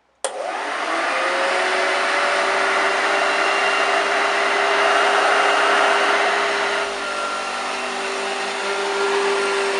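1970s Hoover Junior U1016 Dirtsearcher upright vacuum cleaner switched on suddenly and running steadily, with a steady motor whine over the rush of air. A little under seven seconds in the sound dips slightly and changes tone.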